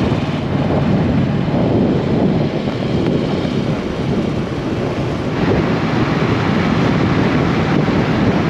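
Wind rushing over the microphone with a motorcycle engine running underneath while riding at road speed, a steady loud noise.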